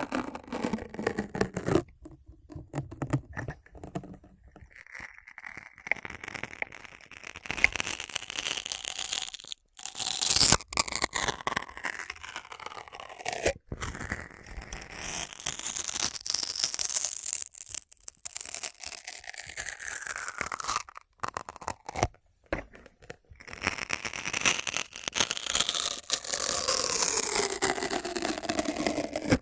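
Close-miked ASMR trigger sounds: continuous scratching and rubbing on a surface, with curving squeaky streaks and a few short pauses between passes.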